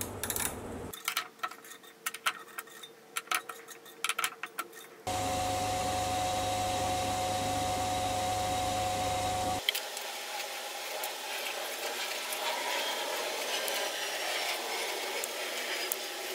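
A mini lathe at work. First a run of light clicks and taps, then the lathe running steadily with a low hum and a held whine from about five seconds in while it turns the workpiece. After an abrupt change at about ten seconds comes a lighter, even hiss with faint ticks as it cuts a thread.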